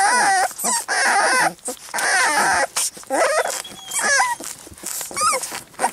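A litter of young puppies squeaking and whimpering while they nurse at their mother, many short high cries overlapping in quick succession.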